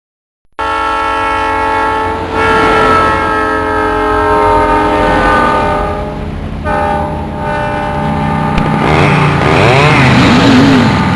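A loud horn sounding a steady chord of several tones, held for about six seconds with short breaks. Near the end an emergency siren starts wailing, rising and falling in pitch.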